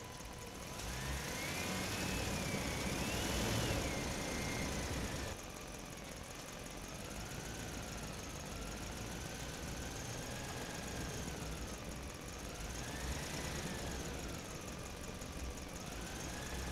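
A motor running, its whine wavering up and down in pitch. A hiss on top of it stops abruptly about five seconds in.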